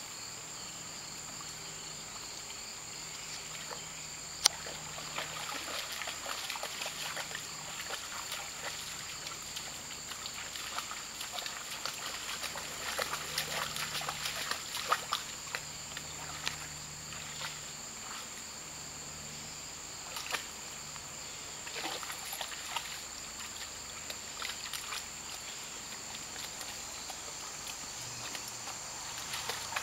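A dog wading through shallow creek water, with irregular splashing that is thickest from about five to seventeen seconds in and picks up again a little after twenty seconds. A single sharp click about four seconds in is the loudest sound. A steady high insect chorus runs underneath.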